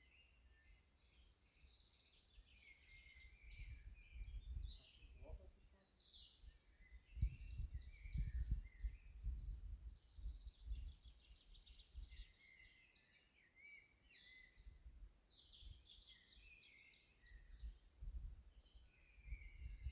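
Several songbirds singing at once, with quick trills and chirps overlapping. Beneath them is a low rumble that swells in the middle and again near the end.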